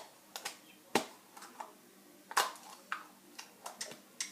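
Plastic surprise eggs and their wrapping being handled: a string of irregular sharp clicks and snaps with light crinkling in between.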